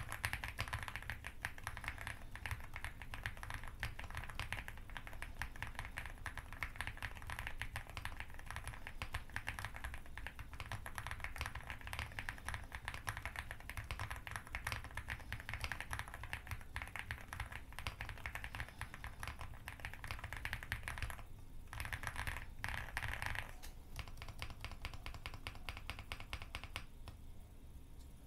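Fast, continuous typing on an Aula Hi75 full-aluminium mechanical keyboard fitted with TTC Superman linear switches and Cherry-profile keycaps: a dense run of keystrokes. There are two brief pauses about two-thirds of the way through, and the typing stops near the end.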